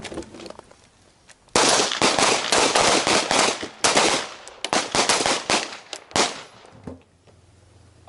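A line of handguns firing together: a ragged string of many overlapping shots starts about a second and a half in and stops about five seconds later.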